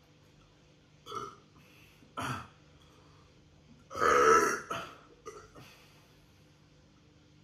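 A man burping, with two short throaty sounds about one and two seconds in and then one long, loud burp about four seconds in, brought up by fizzy Fanta.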